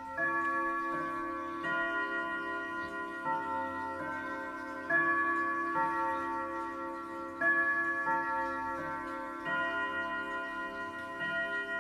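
Old pendulum wall clock chiming a melody, a new note struck roughly every second, each ringing on under the next, with the pendulum ticking beneath.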